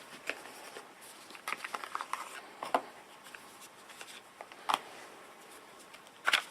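Packaging being unwrapped and handled by hand: a flurry of small crinkles and clicks about a second and a half in, then a few sharp single taps or knocks.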